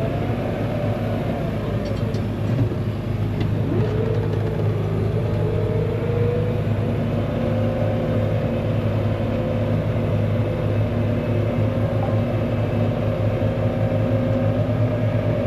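Small engines running steadily while spraying mosquitoes with a ULV mosquito fogger: a low engine drone under a higher whine that dips about four seconds in and then holds steady.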